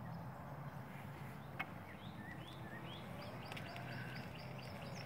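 Faint outdoor ambience: birds chirping with a few short whistled notes, then from about three seconds in a rapid, evenly repeated high chirping, over a low steady hum.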